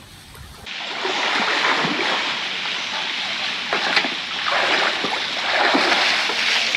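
Swimming-pool water splashing and sloshing, starting abruptly about a second in, with a few louder splashes along the way.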